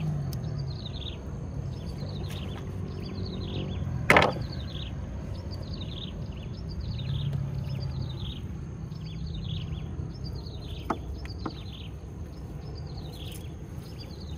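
A bird chirping over and over in short, falling high chirps, about one and a half a second. A sharp knock sounds about four seconds in, and two fainter clicks come near eleven seconds.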